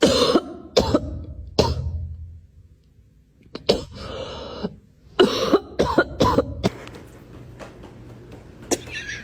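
A series of short, sharp coughing sounds: three quick coughs about a second apart, then after a pause two longer hacking bouts.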